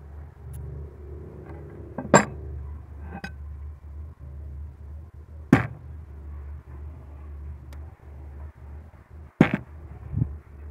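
Steel machete blade handled on a wooden workbench, with three loud sharp knocks a few seconds apart and a few fainter clicks, over a steady low hum.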